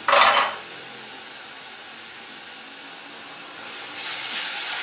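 Diced onion and minced garlic sizzling in olive oil in a stainless-steel pan: a short loud burst of noise right at the start, then a steady soft sizzle. About four seconds in it grows louder as a wooden spoon starts stirring the pan.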